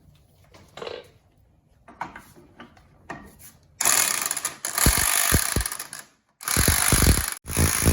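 A few light tool clicks, then an impact wrench hammering in three loud runs with short stops between, working the 33 mm nut off the rear axle shaft.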